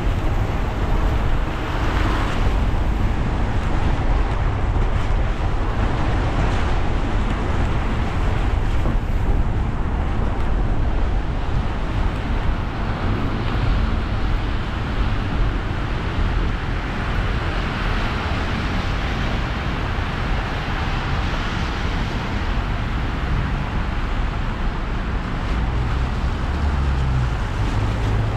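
Car driving on wet roads in the rain: a steady rumble of the engine and road with a constant hiss of tyres on water. The hiss swells briefly about two seconds in and again for a few seconds around twenty seconds in.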